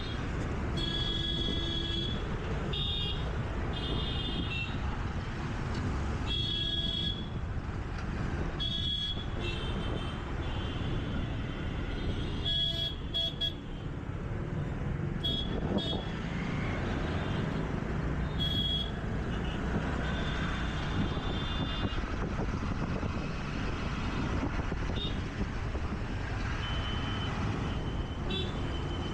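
City traffic heard from a moving scooter: a steady rumble of engines, tyres and wind, with frequent short horn honks from surrounding vehicles, most of them in the first twenty seconds.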